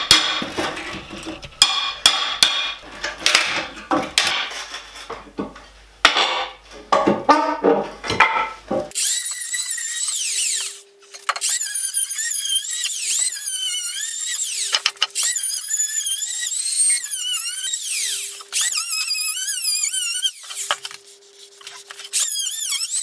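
Hammer blows and a steel pry bar clanking against an old wooden floor joist, in irregular metal knocks. About nine seconds in, an electric hand planer takes over with a high whine that rises and falls as it cuts along the old beams, breaking off briefly each time it is lifted.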